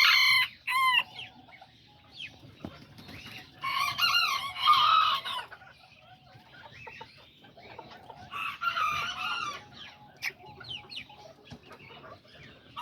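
Kikiriki bantam roosters crowing: a short loud call at the start, then two long crows about four and eight and a half seconds in, with hens clucking softly between.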